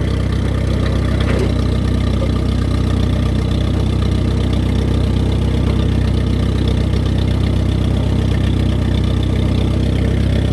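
1953 Allis-Chalmers WD tractor's four-cylinder gasoline engine running steadily at low speed.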